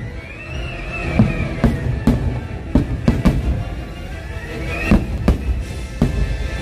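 Fireworks show music playing over loudspeakers while aerial fireworks shells burst over it in a string of sharp bangs, about nine in all, spaced irregularly.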